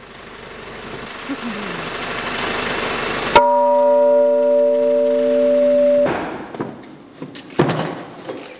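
A church bell, hung in its new headstock, struck once and ringing with several steady tones that cut off abruptly about three seconds later. Before the strike a rushing noise swells up. After it come knocks and rattles from a hand pallet truck rolling a pallet of bells over the floor.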